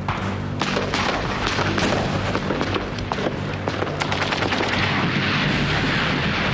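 Battle sound effects: repeated gunshots and machine-gun fire with booming blasts, the noise thickening after about four seconds, over a low sustained music drone.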